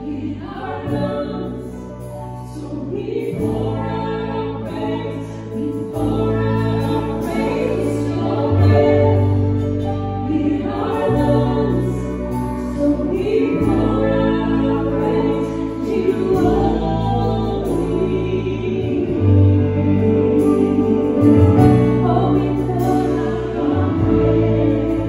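Live worship band playing a slow worship song: voices singing together over sustained keyboard chords, electric guitars and drums.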